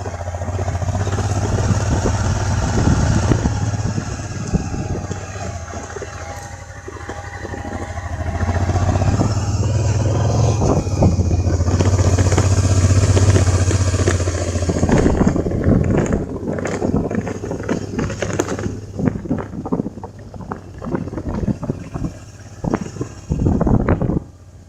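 A vehicle's engine running while driving, with a steady hiss of wind and road noise. The engine grows louder a third of the way in and drops back about halfway. From then on, many short knocks and rattles come through.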